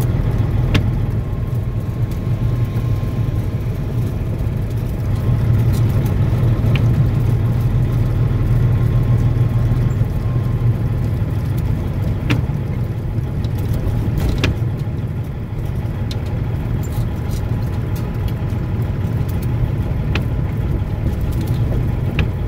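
Truck's diesel engine running steadily, heard from inside the cab as a low drone, swelling a little for a few seconds about five seconds in. A few faint clicks sound here and there.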